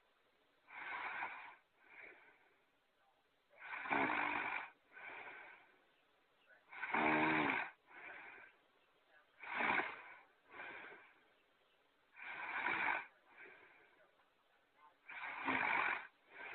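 Cartoon snoring sound effect repeating in an even cycle about every three seconds: each loud snore is followed by a softer, shorter one, six times over.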